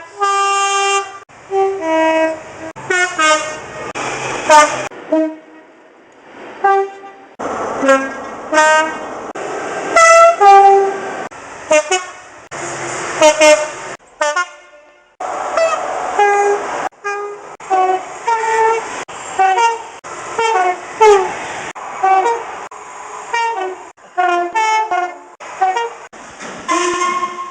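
British train two-tone horns, one blast after another: short notes that step between a high and a low pitch, each lasting a second or less, with sudden starts and stops all the way through.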